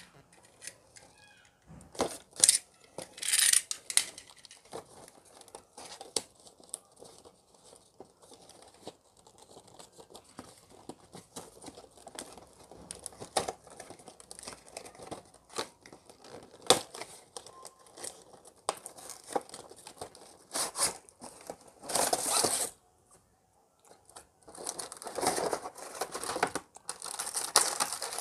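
Cardboard toy box being opened by hand, with tearing, scraping and sharp clicks of the packaging at irregular moments. Near the end a clear plastic tray holding diecast toy cars crinkles steadily as it is slid out.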